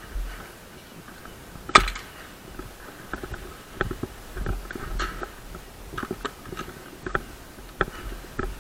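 A run of sharp, irregular clicks and knocks over a low rumble, with one much louder crack about two seconds in.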